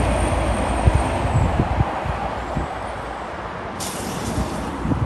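Heavy diesel trucks passing on a road, including a semi-truck pulling a tanker trailer: a steady rumble of engines and tyres, with gusts of wind on the microphone. A brief hiss comes about four seconds in.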